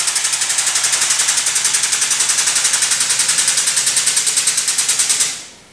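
Air-operated motorcycle lift hissing in rapid, even pulses as it is worked to raise the motorcycle, then cutting off near the end.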